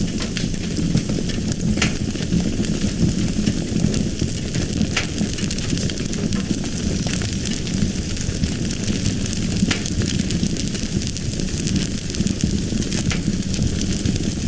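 Fire burning with a steady hiss, broken by about four sharp crackling pops a few seconds apart.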